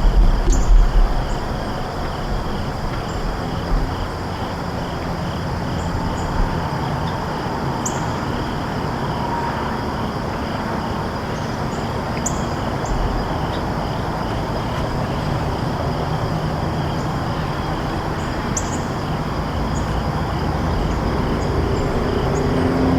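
Outdoor late-summer ambience: insects chirring steadily in a high, pulsing drone, with a few short bird chirps and a steady low rumbling noise underneath, heaviest in the first second.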